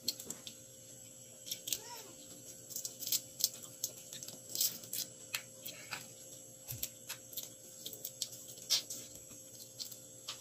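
Crab being eaten by hand: irregular small clicks and smacks from shell being picked apart and from chewing.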